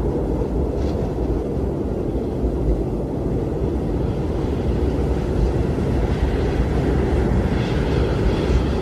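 Strong wind blowing steadily, a deep low rush, with a faint higher hiss coming up briefly about a second in and again near the end.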